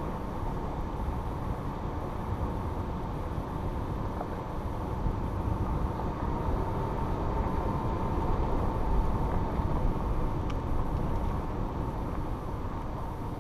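2014 Toyota 4Runner SR5 driving slowly along a gravel dirt trail: a steady low rumble of engine, drivetrain and tyres on gravel, picked up by a camera mounted outside on the hood. It grows a little louder in the middle.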